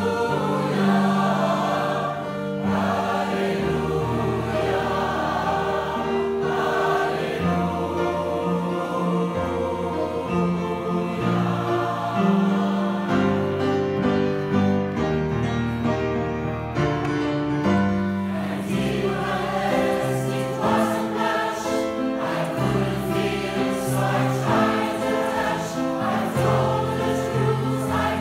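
Mixed choir of men's and women's voices singing held chords, accompanied by a grand piano.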